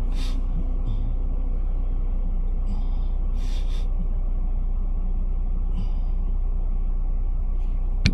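Jeep engine running with a steady low rumble, with no clear revving.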